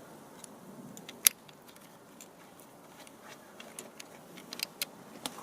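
Small metal hardware being handled: light clicks and taps of a washer going onto a screw on a handlebar-mounted pump clamp, with one sharp click about a second in and a quick run of lighter clicks near the end.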